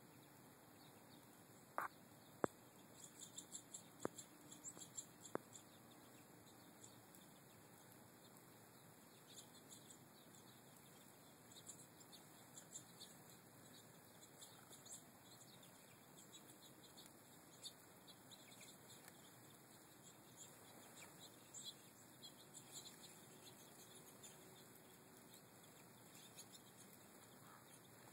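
Faint, scattered high twittering chirps of American goldfinches at a seed feeder, with a few sharp clicks in the first several seconds.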